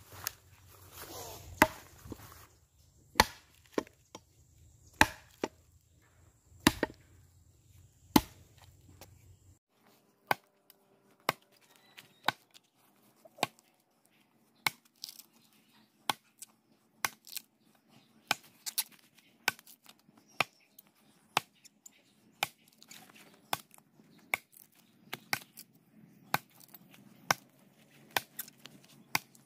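An axe chopping into a log, hollowing out the bowl of a wooden mortar: a long series of sharp, single strikes, about one every second or so, coming faster in the second half.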